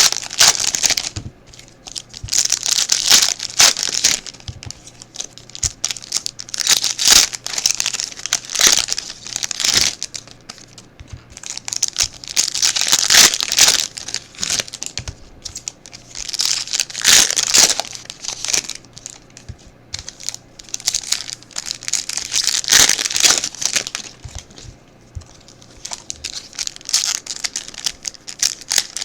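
Foil wrappers of football trading-card packs being torn open and crinkled by hand, in irregular bursts of rustling and tearing with short pauses between.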